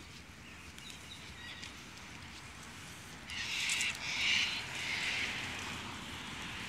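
Sulphur-crested cockatoos screeching: faint calls about a second in, then three harsh, loud screeches in quick succession a little past halfway.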